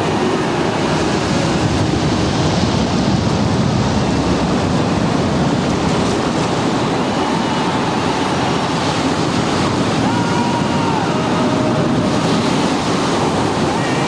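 Recorded surf: a steady wash of breaking sea waves. Faint held tones drift in partway through.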